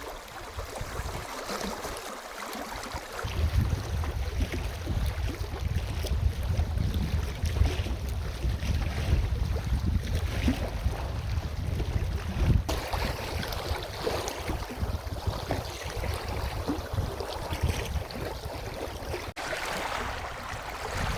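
Wind buffeting the microphone outdoors: a heavy low rumble over a steady rushing hiss, changing abruptly twice.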